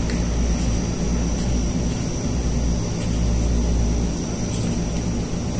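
Steady low mechanical rumble with a faint high-pitched whine above it, and a few faint clicks from a telescopic fishing rod being handled.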